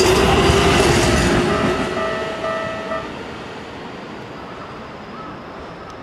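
Keikyu 2100-series electric train running past over a level crossing at speed, its wheel and rail noise loud at first, then fading away over a couple of seconds as the last car goes by.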